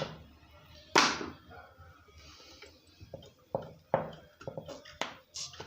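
Hands working on a chainsaw: one sharp knock about a second in, then a scattering of lighter clicks and taps from parts and tools being handled.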